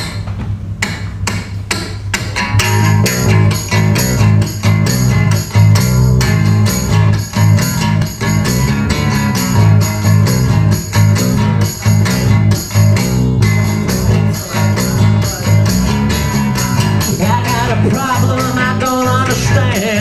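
A band playing a song's instrumental opening: strummed acoustic guitar and electric bass guitar over a steady percussion beat. A wavering melodic line joins near the end.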